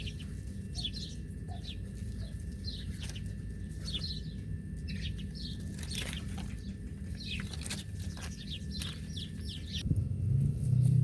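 Small birds chirping, many short high chirps in quick, irregular succession over a steady low hum. About a second before the end, the chirping thins and a louder low hum starts.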